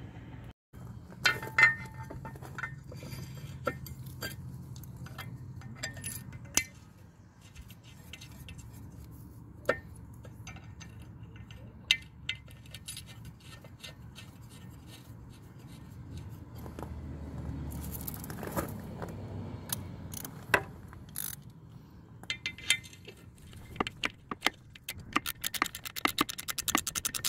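Small metal clinks and clicks as new bolts with lock washers and a metal anode are handled and started by hand. Near the end, a socket ratchet clicks quickly as a 14 mm bolt is run in.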